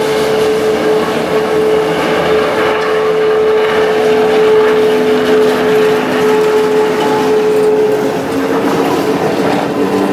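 Historic two-car tram (motor car 2990 with a trailer) rolling past through a tight curve, its wheels squealing on the rails in a steady high tone that shifts slightly in pitch near the end.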